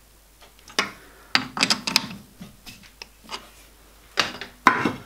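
Four-jaw lathe chuck being tightened up: a series of irregular sharp metallic clicks and knocks as the chuck key works the jaw screws.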